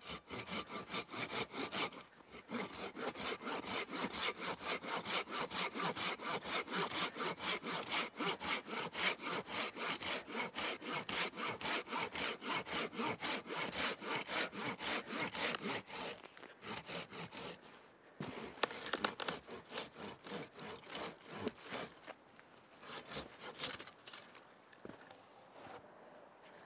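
Hand saw cutting through wood in steady back-and-forth strokes, about three to four a second, with a short pause about two seconds in. The sawing breaks off past the middle, then returns in more uneven strokes that trail off near the end.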